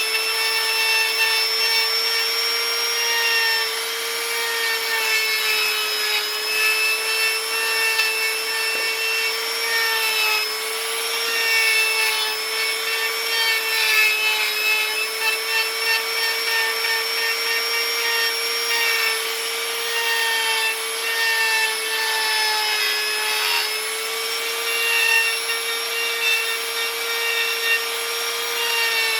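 Handheld electric power tool running steadily with a constant motor whine while its cutter grinds and scrapes into wood, the rasping rising and falling a little as it bites.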